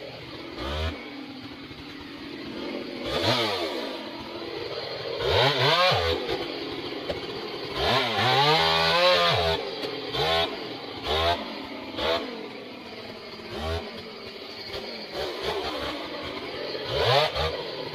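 Large two-stroke chainsaw with a long bar cutting through the base of a big conifer in a felling cut, its engine revving up and dropping back again and again, with the longest, loudest run about eight seconds in.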